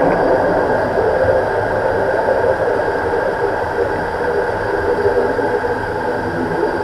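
Steady engine and propeller noise of a Beechcraft King Air's twin Pratt & Whitney PT6A turboprops, heard inside the cockpit on the landing approach just above the runway. It is an even rushing hum with a few steady tones running through it.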